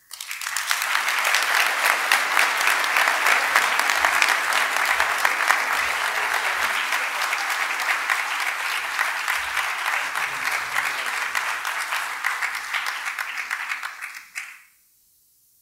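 Audience applauding steadily: dense clapping that starts at once and dies away near the end.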